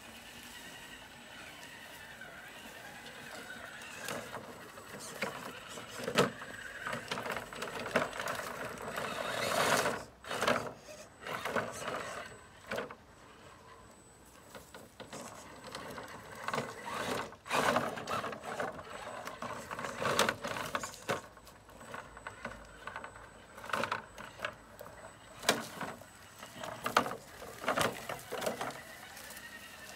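Element RC Enduro Sendero 1/10-scale trail truck's electric motor and gearbox whining in uneven throttle bursts as it crawls over grass and rocks, with scattered clicks and knocks.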